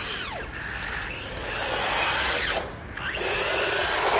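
A small electric RC car driving at speed on wet asphalt: a high whine from its motor and gears with a hiss of tyres on the wet surface. The sound falls away briefly about two and a half seconds in, as the throttle eases off, then comes back on.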